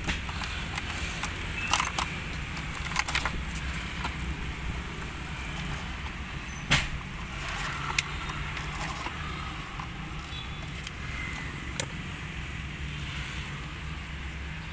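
Scattered clicks and rattles of plastic dashboard trim and wiring connectors being handled, over a steady low hum in the car cabin. The sharpest click comes about halfway through.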